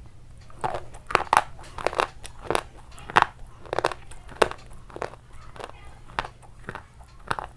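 Crunchy food being bitten and chewed: a series of sharp, crackling crunches at an uneven pace, about two a second.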